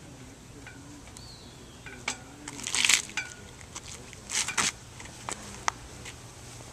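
Scattered rustles and clicks from handling a flag and its halyard snaps, loudest in two short bursts about three and four and a half seconds in, with a sharp click or two after.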